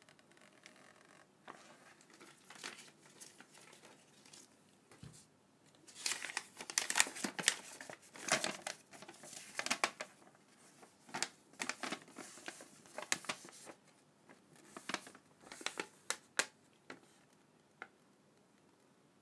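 Paper rustling and crinkling as a folded printed leaflet and letter are unfolded and handled, in irregular bursts of rustles that are loudest in the middle of the stretch.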